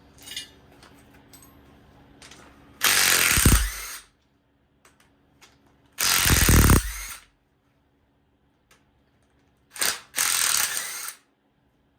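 Power impact wrench run in three bursts of about a second each, with a short blip just before the third, loosening bolts.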